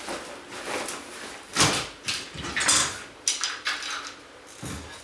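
Clothes hangers clattering together as they are handled and packed into a plastic bag: a run of short, irregular rattles, with a duller knock about one and a half seconds in and another near the end.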